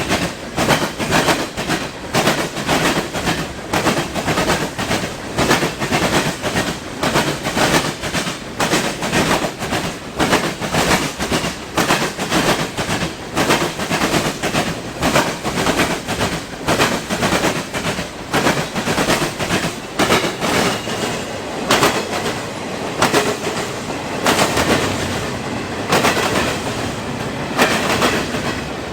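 Railroad cars rolling past, wheels clicking over rail joints in a quick, steady clickety-clack. The clicks blur into a steadier rumble in the last third.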